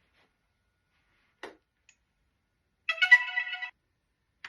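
A DJI drone's electronic power-on chime: a click, then a short chord of several steady beeping tones lasting under a second, about three seconds in.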